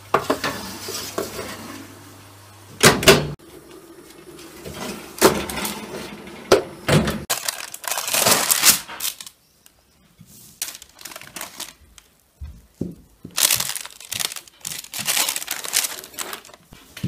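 Kitchen handling sounds around a cake pan and cake ring. A low steady hum ends with a loud knock about three seconds in. Scattered clatters follow, then baking paper rustles and crinkles near the end as it is peeled off a baked sponge cake.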